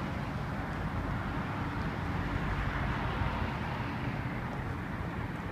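Steady low rumble of city traffic, with wind on the microphone.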